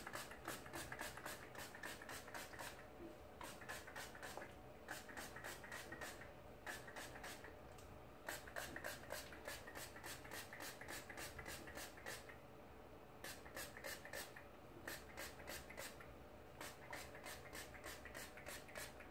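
Handheld spray bottle spritzing in quick runs, about three pumps a second, with short pauses between runs.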